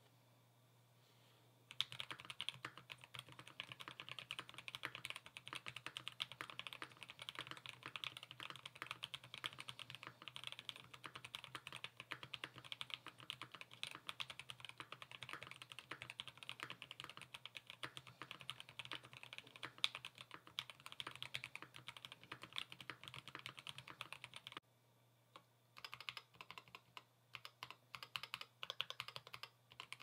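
Melgeek Mojo68 plastic-cased mechanical keyboard with Kailh custom plastic switches being typed on: a steady run of rapid keystrokes starting about two seconds in. It pauses about 25 seconds in, then a few shorter bursts of typing follow.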